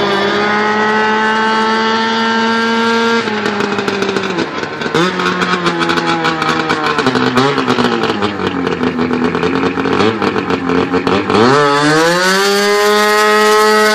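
Golf cart with a 570 cc Yamaha two-stroke snowmobile engine running hard. Its pitch climbs for the first few seconds, then drops and varies at lower revs. Near the end it sweeps sharply up to a loud, high, steady note under full throttle.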